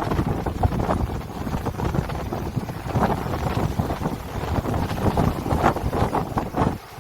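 Strong wind blowing over the sea, gusting unevenly and buffeting the microphone with a low rumble.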